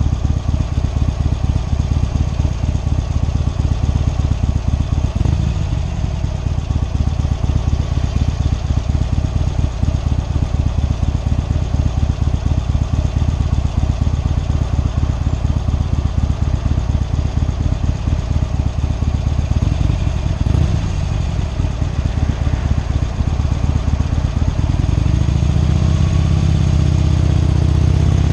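Harley-Davidson Sportster Iron 883's air-cooled V-twin running steadily at highway cruising speed, its firing pulses loud and even. About twenty-four seconds in, the pulsing smooths into a steadier low sound that rises and falls in pitch.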